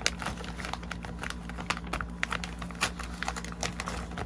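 Glossy plastic bag crinkling and crackling in a child's hands as she pulls its sealed edge apart to tear it open: a run of small irregular crackles.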